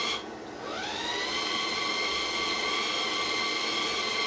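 Wire-feed motor of a Redbo MIG-120 multiprocess welder, stopping briefly, then spinning up again about half a second in with a rising whine and settling into a steady whine. Its drive rollers are pulling flux-core wire through the liner to the torch in a wire-feed test.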